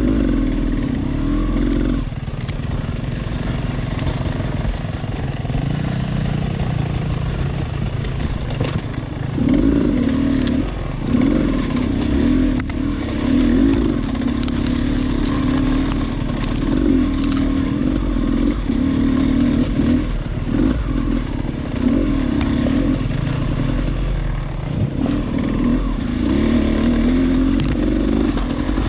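Dirt bike engine running on a trail ride, the revs rising and falling again and again as the throttle is worked. Short knocks and clatter come through from the bike going over rough ground.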